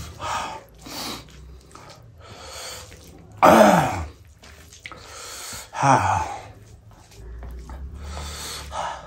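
Eating sounds: heavy breaths and sniffs through the nose while chewing, with rice and gravy being mixed by hand. There are two short vocal sounds falling in pitch, about three and a half and six seconds in.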